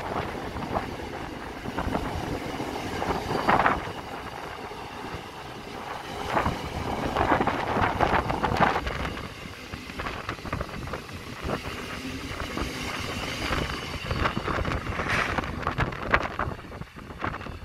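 Container freight train wagons rolling past on the rails: a steady rumble with irregular clanks and knocks from the wheels and couplings. The sound drops away near the end as the last wagon goes by.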